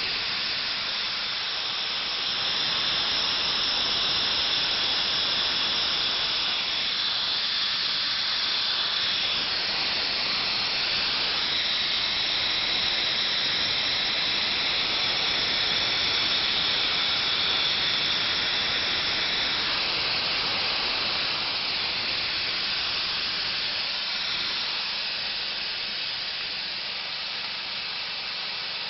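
Steady hiss of carbon monoxide gas streaming from a Gopher Exterminator machine's hose into a bucket holding a pocket gopher, easing off slightly near the end.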